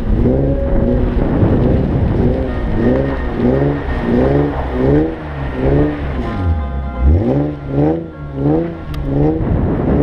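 Infiniti G37x's V6 with an Ark Grip aftermarket exhaust revving up and down in quick repeated surges, about twice a second, as the car spins donuts in snow; about seven seconds in the revs drop low and climb again.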